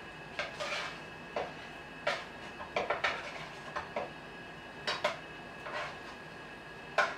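Cooking utensil scraping and knocking against a frying pan as pieces of chicken thigh are tossed around in it: about a dozen short, irregular strokes over a steady faint hiss.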